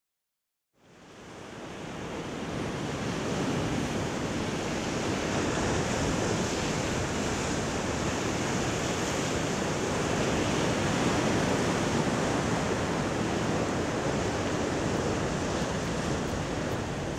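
Ocean surf washing against a rocky shore: a steady rush of waves that fades in from silence over the first few seconds.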